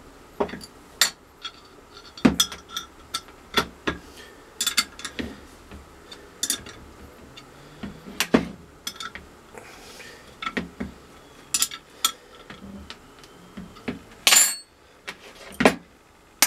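Tightening the nuts on the bolts of a homemade leather embossing press: irregular sharp metallic clicks and clinks from the tool and hardware, a couple a second, with a longer rattle near the end.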